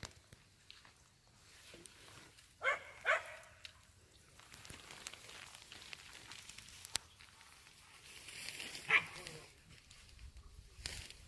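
A puppy giving short yips: two close together about three seconds in, and one more near the end.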